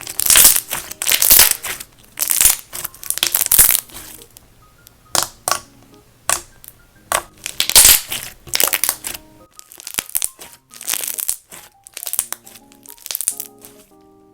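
Thick slime being squeezed, pressed and stretched by hand, giving loud crackling, popping squelches in repeated bursts about every half-second to second, over soft background music.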